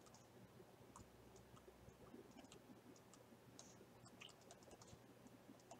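Near silence, with faint, irregular clicks and taps of a stylus writing on a tablet.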